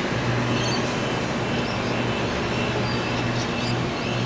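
Sydney Trains Waratah (A set) double-deck electric train running past along the platform: a steady rumble of wheels on rail with a low hum and a fainter high whine from the electric drive.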